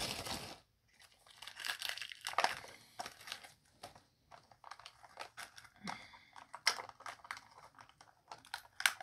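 Thin plastic wrapping crinkling and tearing as it is picked open by hand, in irregular bursts with small sharp clicks, pausing briefly about a second in and again near the middle.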